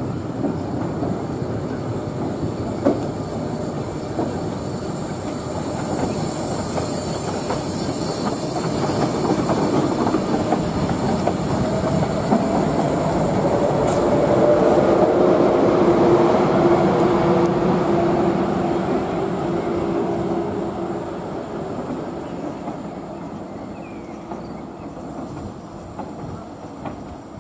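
A train passing on the rails, its wheels clattering over the rail joints. It builds to its loudest about halfway through, with a humming tone at the peak, then fades away.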